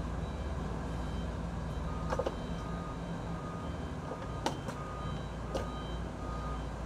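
Vehicle reversing alarm beeping at an even pace, about one and a half beeps a second, over a low steady rumble, with a few sharp clicks.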